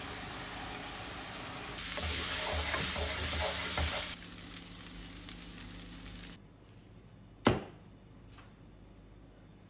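Small pieces of chicken sizzling in a frying pan, louder for about two seconds while a wooden spatula stirs and scrapes through them. The sizzling cuts off about six seconds in, and a single sharp knock follows.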